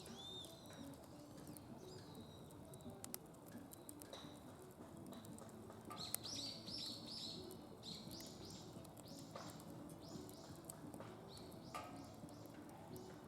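Wood fire crackling in a DOD Mecha-Moe Fire pit, with sharp pops and clicks scattered throughout. Runs of high chirping notes come in twice, about halfway through and again a little later.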